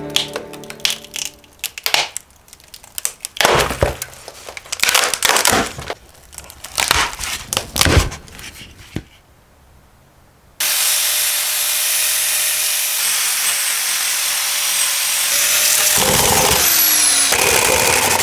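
Irregular crunching and cracking for the first half, then a wire wheel brush on an angle grinder starts about ten seconds in and runs steadily, scouring loose cork from the inside of a hollow cork bark round, its pitch dipping briefly as it bears on the cork.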